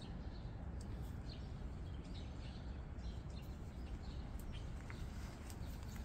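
Small birds chirping faintly and repeatedly over a steady low outdoor rumble.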